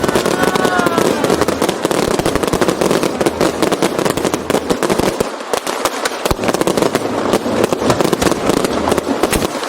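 Fireworks display: dense, continuous crackling and popping of many bursting shells, with sharp bangs scattered throughout.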